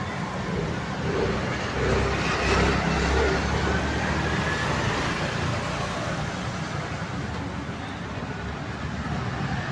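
Street traffic noise: motor vehicles running and passing on a town street, with a low engine rumble swelling about two to three seconds in.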